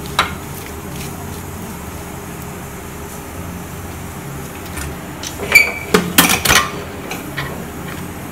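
Stainless-steel pressure cooker lid being set on the pot and closed: a quick run of sharp metal clanks, one with a brief ring, about five and a half to six and a half seconds in, with a single click near the start. A low steady hum sits underneath.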